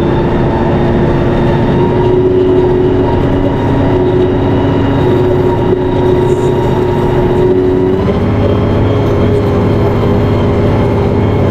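Valmet 1280 tractor's diesel engine running steadily under load, with a steady whine over its hum. The tone changes about eight seconds in.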